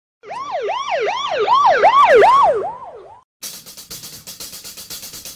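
A siren yelping, its pitch rising and falling about three times a second for roughly three seconds before fading out. After a brief break, drum-driven music starts about three and a half seconds in.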